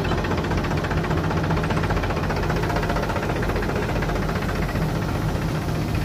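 Gill Preet combine harvester running steadily while it unloads mustard seed into a trailer: a constant engine drone with the rushing hiss of seed pouring onto the heap.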